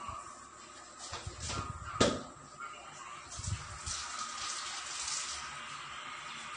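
Kitchen work at a gas stove: a sharp metallic clank of cookware about two seconds in, then a steady watery hiss.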